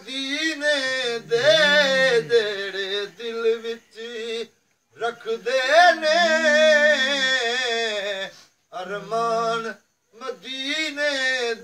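A man singing verses solo and unaccompanied, in long held, wavering melodic phrases, breaking off briefly a few times between lines.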